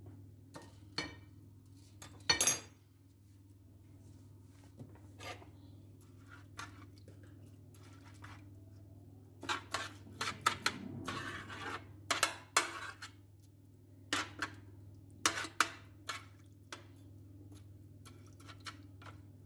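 Metal spoon scraping and clinking against an oven tray as rice is spread through the liquid around chicken pieces, in irregular strokes that come thickest toward the middle. A steady low hum sits underneath.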